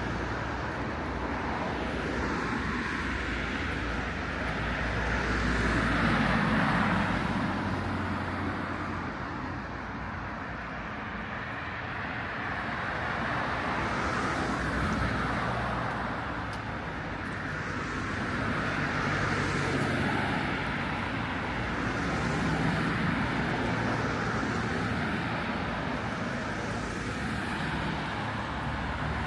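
Road traffic: cars passing one after another, the sound swelling and fading several times over a steady low engine hum.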